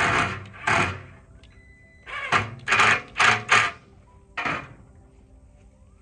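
Cordless drill driving a screw into a wooden board in about seven short trigger bursts, two near the start, a quick run of four in the middle and one more later.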